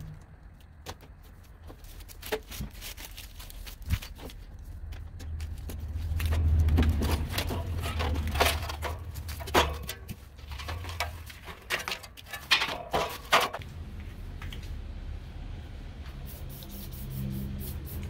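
Scattered metal clicks, knocks and clatter of hand tools and panel parts as an air-conditioner unit is opened up to get at its fan motor, with a low rumble that swells in the middle.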